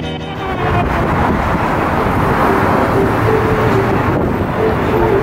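City street noise: traffic going by, with wind rushing on the phone's microphone. Guitar music cuts out about half a second in, and a faint steady hum joins about three seconds in.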